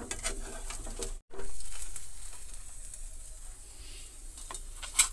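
Metal spatula scraping and tapping in a hot kadhai as a moong dal pizza is slid out, with a steady sizzle that slowly fades after about a second, and a sharp tap near the end.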